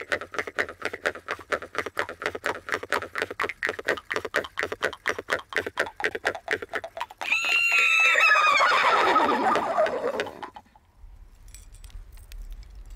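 Khomus (Sakha jaw harps) played together with a fast, even strumming rhythm, then, about seven seconds in, a loud neigh-like call that falls in pitch for about three seconds and stops.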